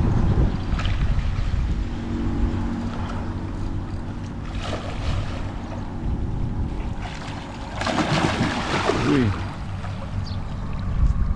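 Water splashing and churning as a hooked arapaima is fought near the bank, over a steady low rumble of wind on the microphone. The loudest splashing comes twice, about four and a half seconds in and again around eight to nine seconds in.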